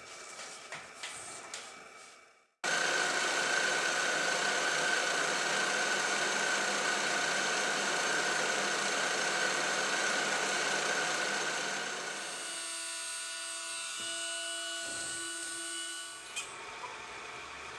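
CNC machine at work: after a few light clicks it starts abruptly into a loud, steady run with a high whine over cutting noise, then drops to a quieter run about two thirds of the way through.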